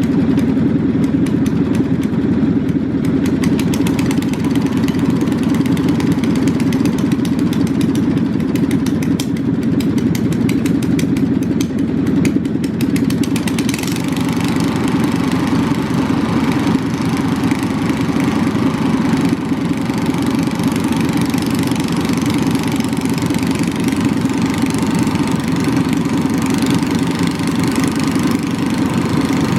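Small lawn mower engine running steadily at idle. About fourteen seconds in, the sound turns brighter and hissier.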